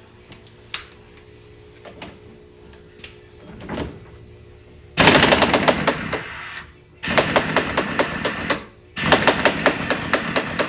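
Impact wrench hammering in three bursts of about two seconds each, starting about halfway through, with short pauses between them. A few light tool clicks come before.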